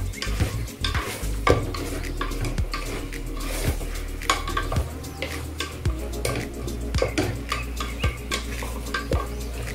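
Wooden spatula stirring chunks of beef in an aluminium pressure cooker, with many irregular knocks and scrapes against the pot's walls, and the meat sizzling as it sears.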